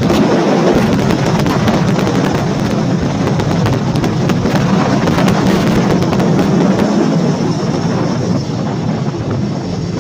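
Vehicle engine running steadily while driving, under heavy crackling wind buffeting on the microphone.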